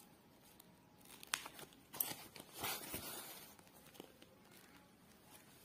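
Woven plastic sack crinkling and rustling under a hand, with a few sharp crackles and a louder rustle about two and a half seconds in.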